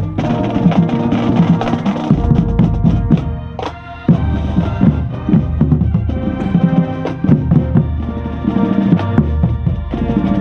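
Marching band playing, brass holding chords over the drumline, with the bass drums close to the microphone. The music dips briefly about three and a half seconds in, then comes back in suddenly and loud.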